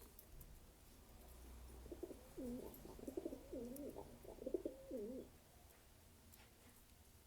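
Domestic pigeon cooing: a run of low, rolling, wavering coos lasting about three seconds, starting about two seconds in.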